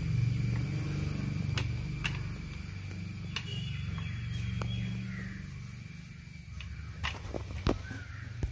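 Sharp metallic clicks and knocks as the gear-shift lever is worked back and forth in the removed gearbox top cover of a Mahindra Jeep, testing the shift mechanism for a sticking third gear; the loudest clicks come near the end. A low steady rumble runs underneath and fades away after about five seconds.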